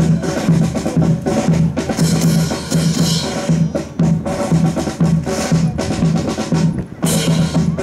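Military band drums playing a marching cadence: a steady bass-drum beat under snare-drum strokes and rolls.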